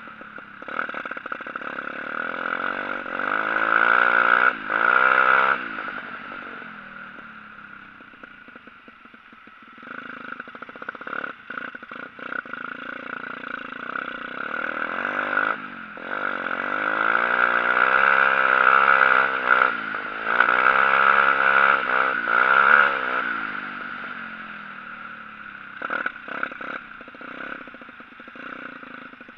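125 cc pit bike engine heard from on board, revving up and easing off as it rides over snow, with two long pulls of throttle: one a couple of seconds in, and a longer one from about sixteen to twenty-three seconds in, with lower, quieter running between.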